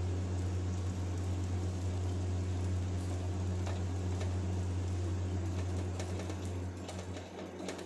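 A steady low machine hum, which weakens near the end, with a few faint light clicks.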